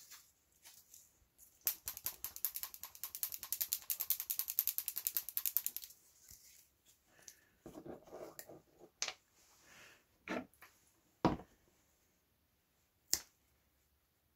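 A small glass jar of Tamiya XF-5 flat green acrylic paint shaken hard, the ball bearing inside rattling against the glass in a rapid, even clicking for about four seconds, starting about two seconds in. After it, a few separate sharp knocks as the jar and its lid are handled and set down.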